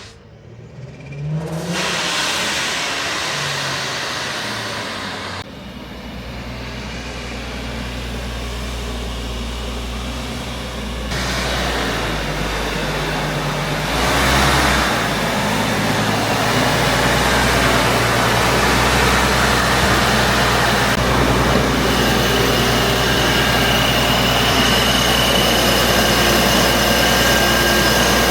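Supercharged Infiniti G37 coupe's V6 engine running as the car arrives, heard in several short cuts. A steady high whine comes in over the last few seconds.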